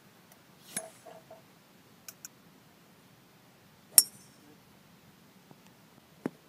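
Golf club striking a ball off a driving-range mat: one sharp, loud crack about four seconds in. Fainter clicks and clinks come before it, and another click comes near the end.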